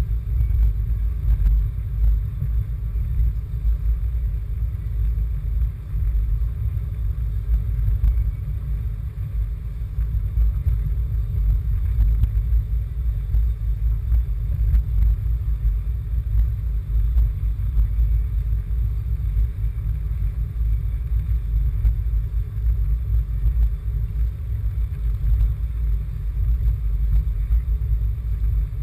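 Steady low rumble inside a moving car's cabin: engine and road noise while driving.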